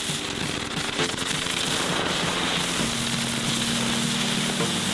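A cluster of small firecrackers going off, fizzing and crackling as they spray sparks, with a sharper pop about a second in.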